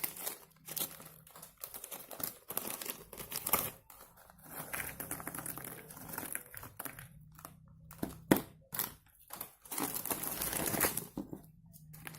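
Plastic snack packet crinkling as it is handled and opened, in irregular spells with a few sharper crackles and short pauses.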